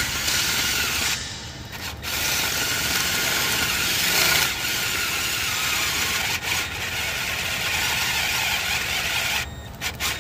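Cordless drill spinning a bit through a broken EGR pipe bolt in a diesel exhaust manifold, the bit held in a bolt-extraction drill guide: a steady grinding whir of the bit cutting metal. It lets off briefly about a second in and again near the end.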